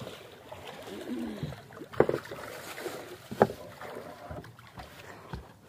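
Two sharp knocks on a wooden boat, about a second and a half apart, as people move about on the deck and one climbs off into the shallows. A steady background hiss runs under them.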